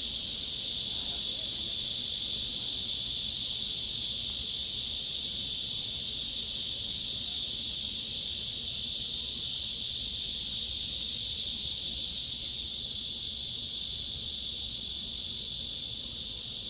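Cicadas buzzing in one steady, unbroken high-pitched drone with no pauses or pulses.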